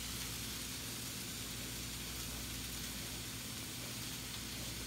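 Steady low hum and hiss of room tone, with no distinct sounds standing out.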